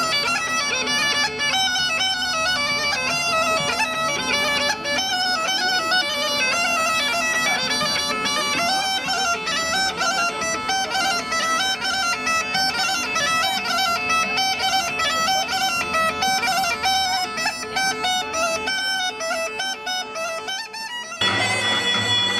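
Instrumental folk music: a bagpipe plays a fast, ornamented melody over a steady drone. The music switches to a different piece about 21 seconds in.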